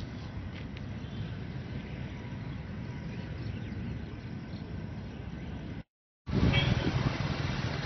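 Steady outdoor rumble beside a flooded pond. After a brief dropout about six seconds in, it gives way to a louder, steady rush of overflow water spilling over a low stone weir.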